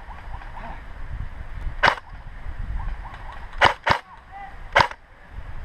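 Airsoft gun firing single shots: four sharp cracks, the middle two in quick succession, over low wind rumble on the microphone.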